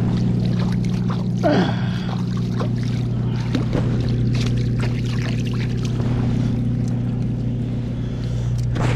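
Water splashing and sloshing as a landing net is worked through shallow river water, with scattered knocks and splashes, over a steady low hum.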